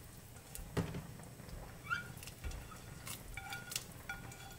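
Quiet kitchen handling at a soup pot: a few light clicks and knocks as the lid and plate are handled over the pot, with faint short squeaky chirps, one rising in pitch, about two seconds in and again near the end.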